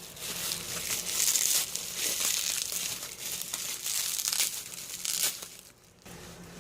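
Plastic packaging and bubble wrap being crinkled and pulled apart by hand, an irregular crackling that goes on for about five seconds, then stops briefly near the end.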